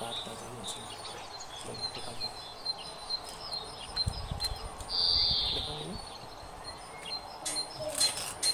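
Birds calling: a loud, high call lasting about a second midway, between runs of short, evenly spaced chirps. A few sharp clicks come near the end.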